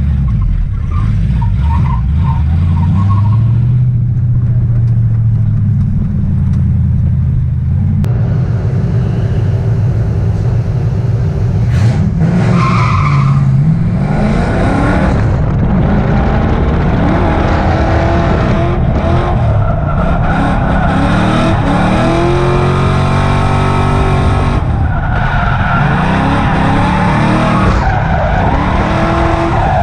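Car engine running hard on a race track, its pitch rising and falling repeatedly with throttle and gear changes, over a loud steady rush of road and wind noise.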